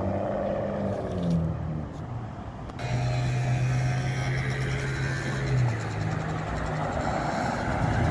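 Mansory-tuned Bentley Bentayga SUV's engine under way: a note that rises and falls in the first second or so, then, after a sudden change about three seconds in, a steady engine drone that steps up in pitch about five and a half seconds in as the car draws near.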